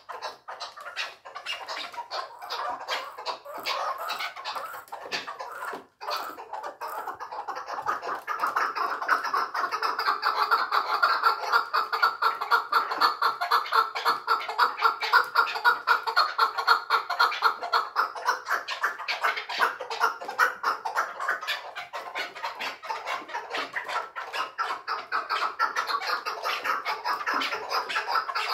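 Chukar partridge calling: a long, rapid run of clucking chuck notes, many to the second. The calling grows louder about eight seconds in and eases somewhat after about twenty seconds.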